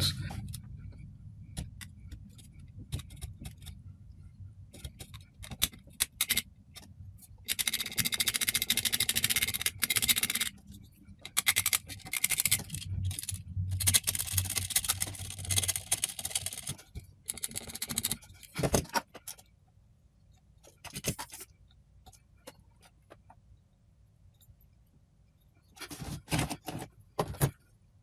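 Small hand tools scraping and clicking against a power supply's circuit board while a trace is cut and a resistor fitted, with scattered taps and clinks and a longer scraping stretch about eight seconds in.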